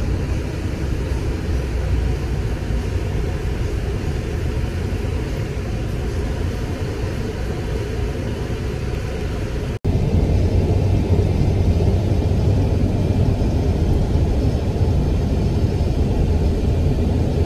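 Steady rumble of road and engine noise inside a moving vehicle's cabin. It cuts out for an instant a little before halfway, then comes back louder and deeper.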